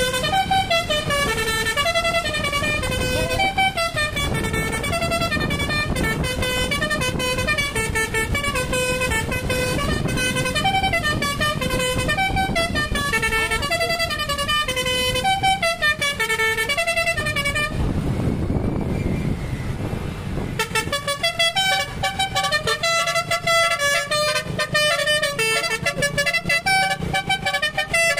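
Basuri V3 telolet bus horn playing a fast melody of short notes, sped up 1.3 times. The tune breaks off for about two seconds roughly 18 seconds in, leaving a low rumble, then resumes.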